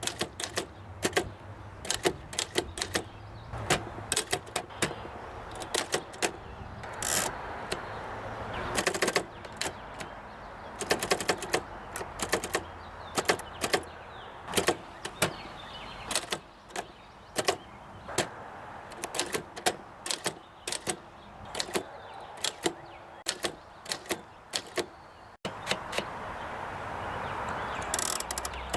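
Oliver No. 11 typewriter being typed on: a run of sharp, irregular keystroke clacks as the typebars strike, with a few longer rattling strokes in between.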